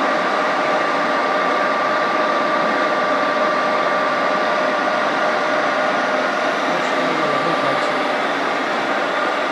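Sajo MC 500 horizontal machining centre running under program control: a steady mechanical hum with a steady whine in it.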